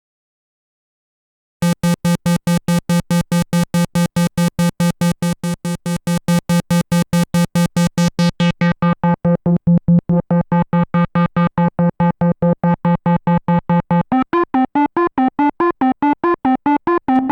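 Arturia MiniBrute 2 analog synthesizer playing a fast sequence of short repeated notes on one pitch, about five a second, starting about a second and a half in. The tone is bright at first and grows duller from about halfway, and near the end the notes begin to step up and down in pitch.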